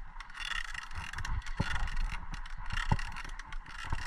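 Mountain bike riding over a rough dirt trail: tyres on dirt and the bike rattling over bumps, with scattered sharp knocks, the loudest two about a second and a half and three seconds in.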